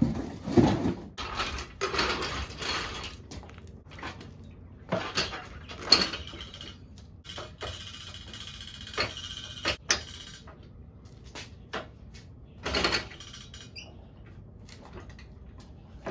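Irregular knocks, clanks and scrapes of tools and parts being handled in a small room, with a few louder bangs spread through it.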